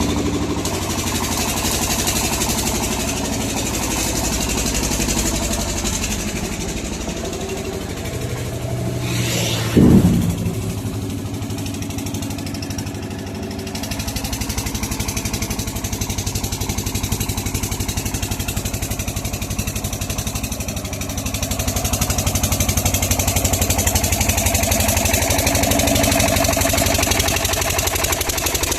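A machine motor running steadily, with a brief rising whine and a loud sharp sound about ten seconds in.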